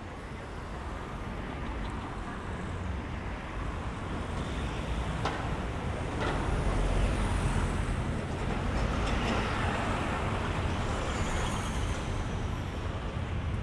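Street traffic with a double-decker bus passing close alongside, its low engine rumble loudest about halfway through, over steady road noise.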